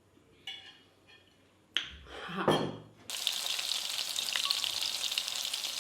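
Food sizzling as it fries in hot oil in a pan. The sizzle starts abruptly about three seconds in, after a couple of short knocks.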